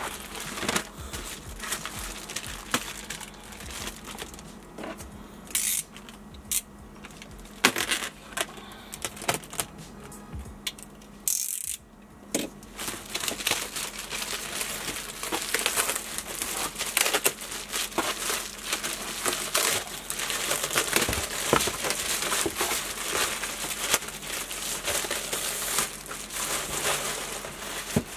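Clear plastic wrap crinkling, rustling and tearing as it is stripped off a cardboard box, in a long run of crackles and rustles. The handling is busiest in the second half, with a brief pause near the middle.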